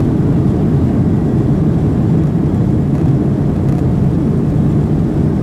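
Boeing 737-800 cabin noise from a window seat over the wing, as its CFM56-7 jet engines and the wheels on the runway make a loud, steady, deep rumble during the takeoff run.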